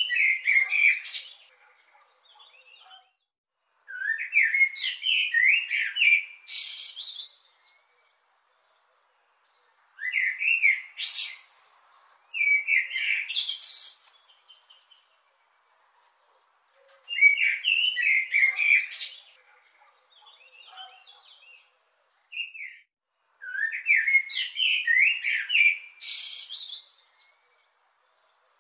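A songbird sings in repeated phrases, about six in all, with pauses of one to three seconds between them. Each phrase is a warbled run of notes that ends in higher, squeakier twittering.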